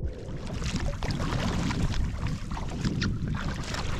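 Water splashing and rushing along a sea kayak's hull as it is paddled through choppy water, with wind buffeting the microphone.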